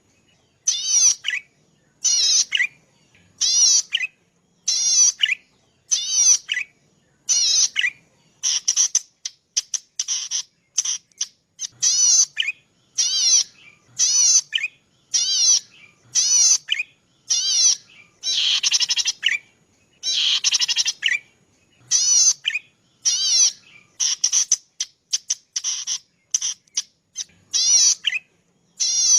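A cici padi, a small rice-field warbler, singing a song of rapid buzzy trills. The trills come in short bursts about once a second, each a quick run of high notes sweeping up and down.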